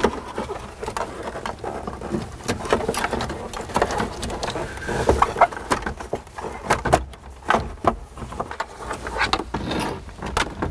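Irregular plastic clicks, knocks and rattles from a pickup truck's plastic dashboard bezel and its wiring being handled and pulled as the radio connectors are worked loose.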